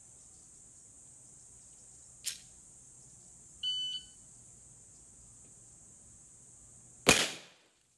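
A single loud Glock 17 9mm pistol shot near the end, with a short ringing decay. A fainter sharp crack about two seconds in and a short electronic beep about a second and a half later come before it, over a steady high-pitched drone.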